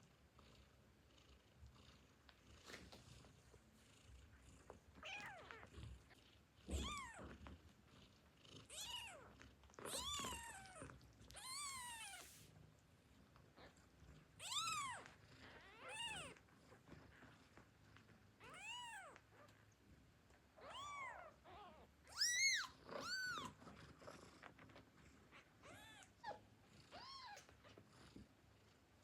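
Newborn kittens mewing: more than a dozen short, high, thin calls, each rising and then falling in pitch, a second or two apart, with the loudest a little past the middle.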